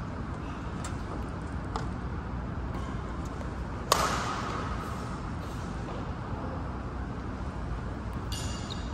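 Badminton racket striking a shuttlecock once in a sharp overhead smash about four seconds in, over a steady low background noise. A brief high-pitched squeak comes near the end.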